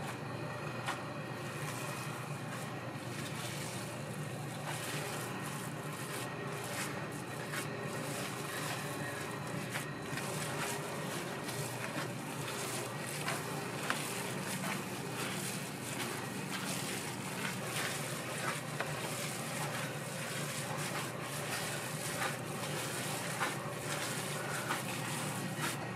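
Restaurant kitchen at work: a steady rushing noise, with frequent short clicks and clinks of utensils and cookware that grow busier in the second half.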